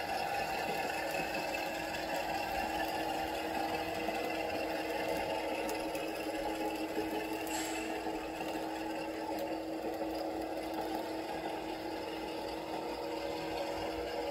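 Model passenger train, hauled by a model Amtrak P42 diesel locomotive, running along the track: a steady whir of motor and wheels that fades slightly as the train moves away.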